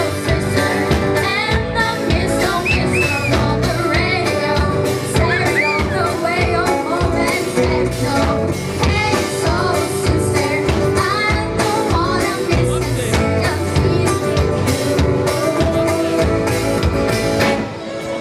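Live acoustic band: girls singing a melody into microphones over strummed acoustic guitars and an acoustic bass guitar, with a drum kit keeping a steady beat.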